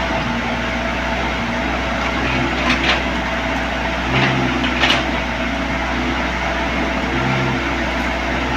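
Excavator's diesel engine running steadily, with a few short knocks or clicks about three and five seconds in.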